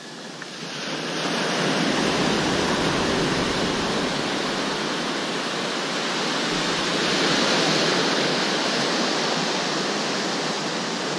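Sea surf washing in steadily, rising sharply about a second in and swelling again later.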